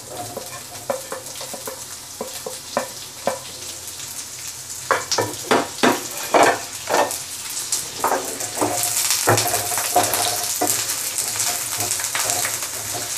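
Chopped red onion sizzling in hot oil in a nonstick frying pan, with short knocks as it is pushed in and stirred with a wooden spatula. The sizzle grows louder about halfway through as the onion heats in the oil.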